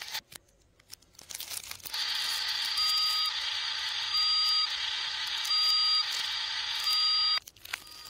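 Electronic alarm sound from a toy's small speaker: a steady hiss with a two-tone beep repeating about every second and a half. It starts about two seconds in after a few light plastic crinkles and cuts off suddenly near the end.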